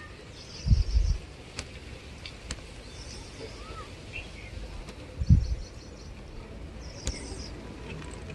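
Outdoor ambience: wind buffeting the microphone in two short low gusts, about a second in and about five seconds in. Short, high chirping trills recur about four times over a steady background hiss.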